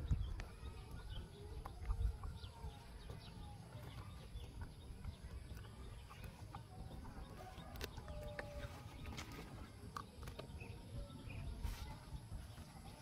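Faint outdoor ambience of birds calling here and there over a low rumble, with a few sharp clicks.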